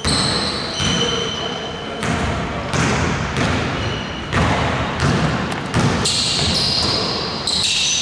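A basketball dribbled on a wooden court, repeated thuds echoing in a large gym, with sneakers squeaking in short high chirps as players move.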